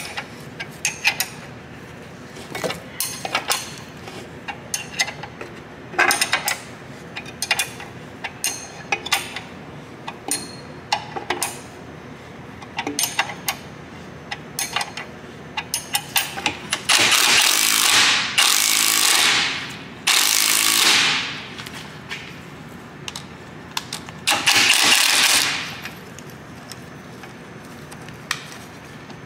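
A ratcheting wrench clicking in short runs as it turns the bolt of a bushing press tool, then a cordless impact wrench hammering in three bursts close together and a fourth a few seconds later, driving the bolt to press a new rear lower knuckle bushing into a Saab 9-5's rear knuckle.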